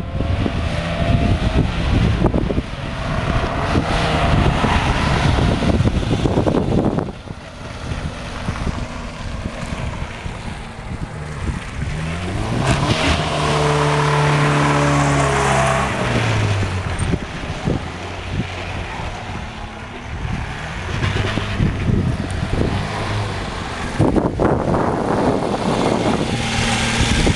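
A 1968 Škoda 1203 van being driven around a test course. Its four-cylinder petrol engine rises in pitch as the van accelerates towards the microphone, then drops as it passes close by about halfway through. Wind rumbles on the microphone at the start and again near the end.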